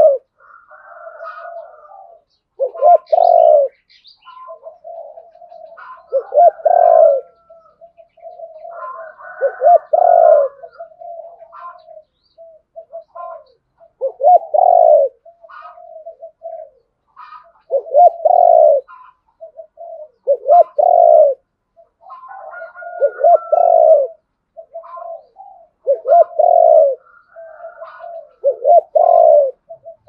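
Spotted dove cooing: about ten loud coo phrases, one roughly every three seconds, with softer notes and faint higher chirps between them.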